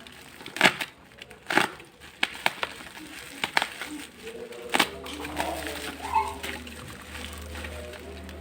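A string of sharp, separate clicks and knocks, about eight or nine, from a small product box and its packaging being handled and opened.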